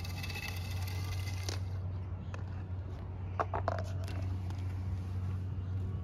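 1/3 HP BOMGIE submersible sump pump's electric motor humming steadily, with a hiss of water and air that cuts off about a second and a half in. A few clicks and knocks from handling the pump come about halfway through.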